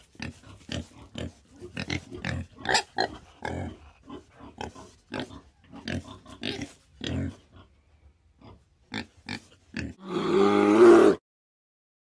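Wild boar grunting: a run of short grunts, often several a second, for about nine seconds. About ten seconds in comes a louder, longer pitched call of about a second from an Asiatic black bear.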